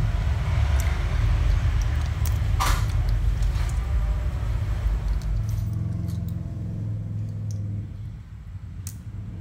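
Small clam shells clicking against each other as they are handled and eaten, a few separate sharp clicks with the loudest almost three seconds in, over a low rumble that fades about halfway through.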